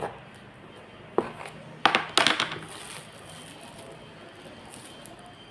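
Snap-on lid of a plastic food tub being unclipped and pulled off: a few sharp plastic clicks and snaps over the first two and a half seconds, the last with a brief crinkly rustle of bubble wrap being lifted out.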